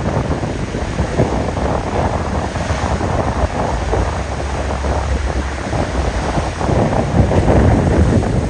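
Breeze blowing across the microphone: a loud, steady rush of wind noise, heaviest in the low end, swelling a little near the end.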